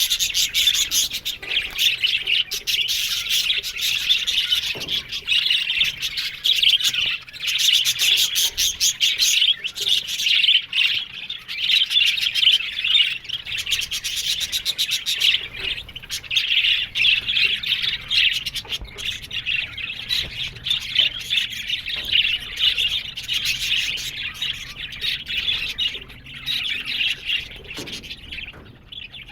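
Budgerigars warbling and chattering without a break, a dense mix of chirps, squawks and clicks.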